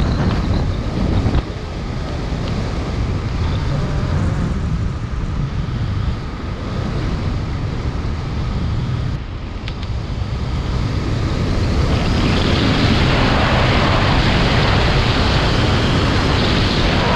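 Strong wind buffeting the microphone: a steady low rumble with a rushing hiss that grows louder about twelve seconds in.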